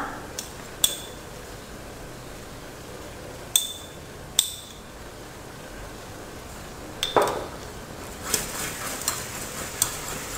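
Metal teaspoon tapping against a stainless steel pot while cinnamon is added: four separate sharp, ringing clinks a few seconds apart, then a quick run of lighter clinks near the end.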